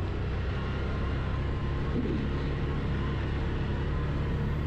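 Quad bike (ATV) engine running steadily while riding, an even low hum that holds its pitch.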